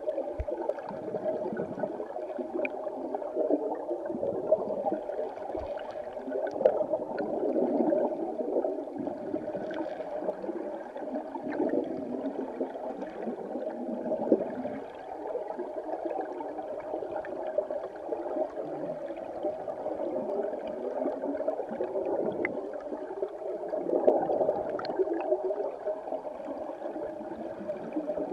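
River current heard underwater through a submerged camera: a steady churning gurgle that swells and ebbs, with a few faint clicks.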